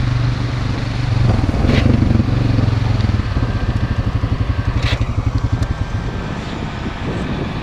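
ATV engine running under way, then easing off about three seconds in, its steady drone breaking into a fast even pulsing. Two brief sharp clicks fall in the middle.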